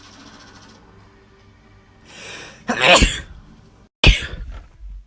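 A person sneezes loudly about three seconds in, with a short drawn-in breath just before it. A second sharp, sudden burst follows about a second later.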